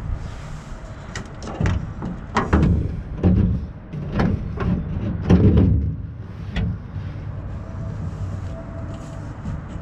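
Pickup truck's steel tailgate being handled and fitted back onto its hinges: irregular metal clunks and knocks, busiest in the first six seconds and quieter after.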